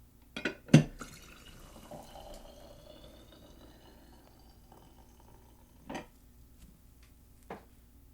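A sharp knock about a second in, then hot water being poured into a mug, its tone rising as the mug fills. Two softer knocks follow, near 6 and 7.5 seconds.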